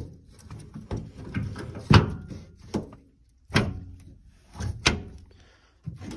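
A truck service-body compartment door being shut and its paddle-handle latch worked: a series of metal thunks and clunks, the loudest about two, three and a half and five seconds in.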